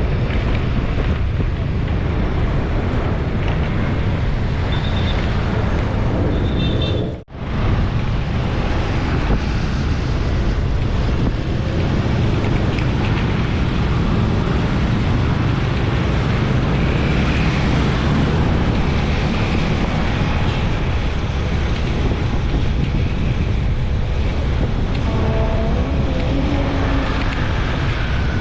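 Wind buffeting the microphone over steady road traffic noise, a loud continuous low rumble. The sound drops out for a moment about seven seconds in.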